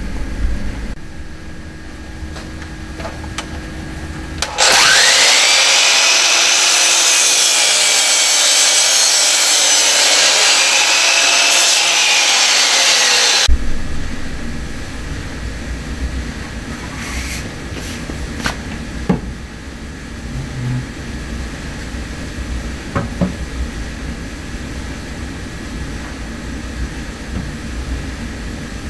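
Electric mitre saw cutting through a wooden rafter for about nine seconds; its high whine sags and recovers in pitch during the cut, then stops abruptly. Afterwards there is a low hum with a few light knocks.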